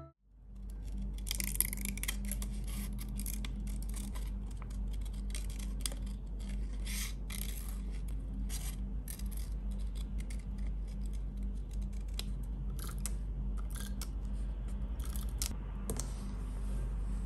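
Scissors snipping around a small paper cutout: many short, irregular cuts and paper rustle, over a steady low hum. The cutting stops shortly before the end.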